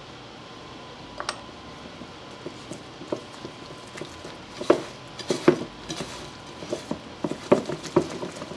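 Silicone spatula mixing thick cake batter in a glass bowl: irregular light knocks and scrapes against the glass, sparse at first and coming thicker and louder in the second half.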